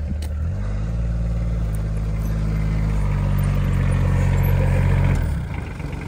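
Gravely JSV utility vehicle's engine running as it pulls up close, growing steadily louder, then dropping back to a quieter idle about five seconds in.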